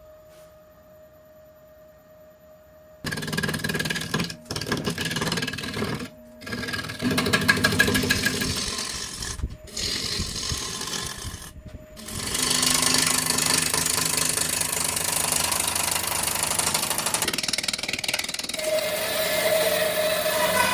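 Wood lathe running with a faint steady hum, then a turning tool cutting into the spinning wood about three seconds in: loud rough cutting noise that stops briefly four times before running on continuously.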